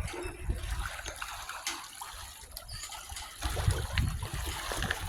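Water trickling steadily, with a low rumble coming in about three and a half seconds in.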